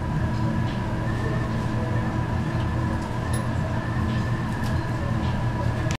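A steady mechanical hum with a thin, steady whine over it, unbroken throughout, with a few faint light ticks.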